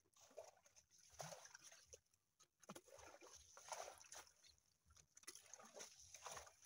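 Faint sloshing and splashing of muddy water being poured out of a plastic bucket, coming in several uneven bursts.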